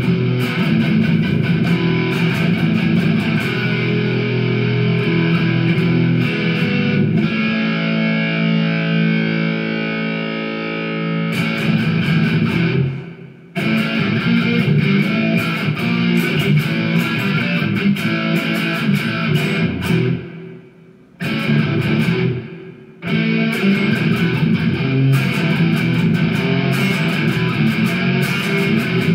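Electric guitar played through distortion and effects, chords and riffs. About a quarter of the way in a chord is held and rings out for several seconds, and the playing stops briefly around the middle and twice more about two-thirds of the way through.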